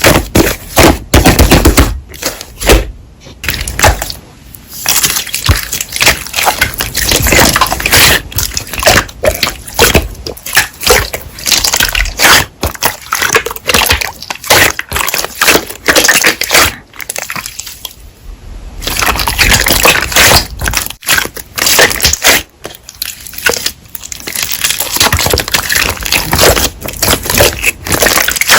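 Slime being squeezed and pressed by hand, with dense wet crackling and popping clicks, broken by a few short pauses.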